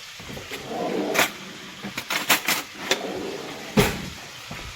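Trout frying in oil and butter in a pan, a faint sizzle under a series of sharp clicks and knocks, the loudest about four seconds in.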